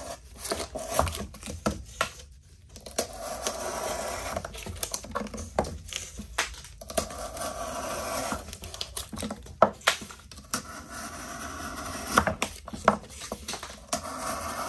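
Civivi Badlands Vagabond folding knife slicing through double-layered cardboard that has a sticker on the back: repeated scratchy cutting strokes with sharp clicks and crackles as the cardboard gives.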